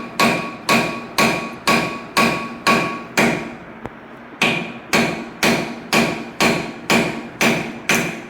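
Hammer striking steel at a steady pace of about two blows a second, each blow leaving a short metallic ring. The blows break off for about a second partway through, then resume.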